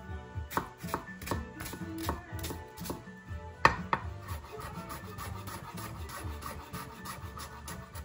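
Chef's knife dicing a shallot on a wooden cutting board: a run of sharp chops, one much louder knock about three and a half seconds in, then quicker, lighter chops.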